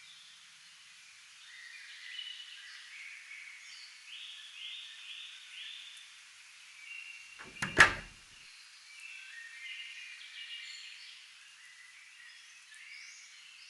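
Nature ambience of birds chirping in short high calls over a faint steady hiss. About eight seconds in comes a single loud, sharp knock.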